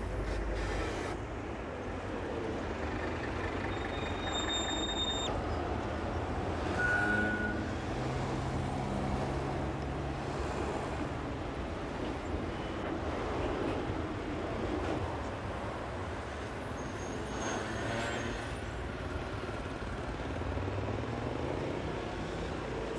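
Steady city road traffic: the engines and tyres of passing vehicles, with a few brief high squeals along the way.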